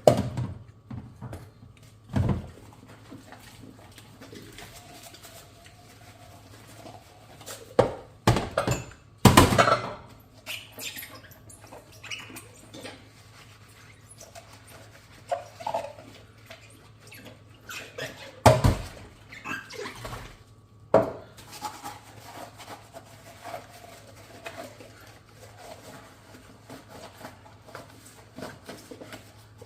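Dishes being handled while hand-washing: scattered sharp knocks and clinks of crockery set down or bumped, the loudest about nine seconds in, with soft rubbing and scrubbing between them.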